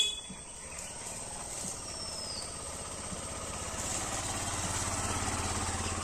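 A small motorcycle engine running slowly at low revs, growing louder from about halfway through as it comes closer.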